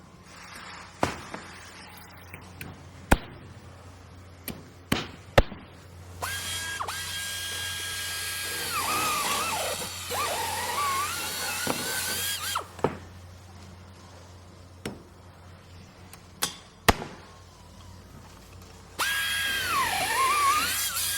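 Power drill running in two bouts: a steady high whine that drops and wavers in pitch as the bit bores into material. Sharp single knocks and taps come in the pauses before and between the bouts.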